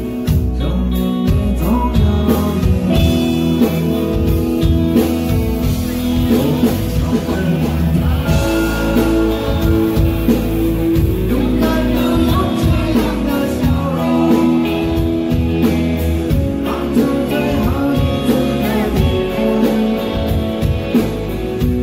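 Rock band playing live: strummed acoustic guitar over electric bass and drums with a steady beat, in an instrumental stretch of the song.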